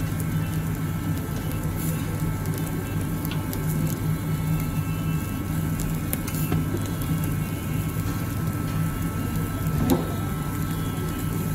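Marinated chicken grilling on a wire grate over charcoal, with scattered small pops and crackles and a sharper crackle about ten seconds in. Underneath runs the steady low hum of the restaurant's ventilation.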